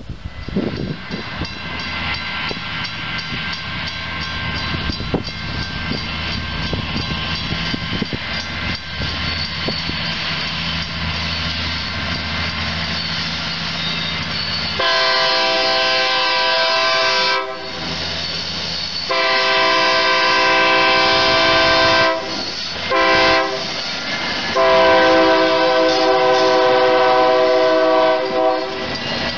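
GE 80-ton diesel switcher locomotive running as it draws near, growing louder. About halfway through it sounds its air horn in the grade-crossing pattern: two long blasts, a short one, then a long one.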